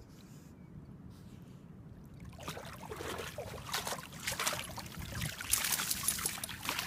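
A dog wading and splashing through shallow creek water as it comes ashore carrying a toy, the splashing starting about two seconds in and getting louder.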